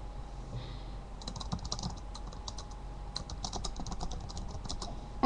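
Typing on a computer keyboard: a run of quick, uneven key clicks that starts about a second in and stops shortly before the end.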